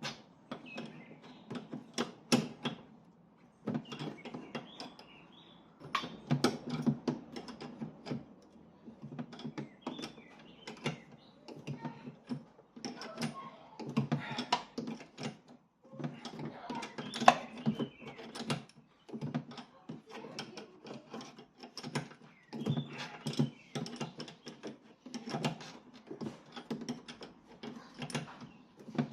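Hand tools working on the rear suspension's shock-mount bolts: irregular clicking and metallic knocking in bursts, with short pauses.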